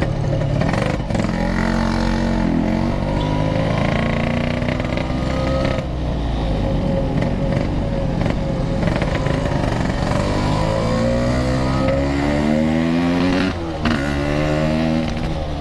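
Yamaha RX-King two-stroke motorcycle engine through a loud 'packing power' aftermarket exhaust, revving on the move: the pitch climbs repeatedly and falls at each gear change, with one long rising pull cut off sharply about three-quarters of the way through.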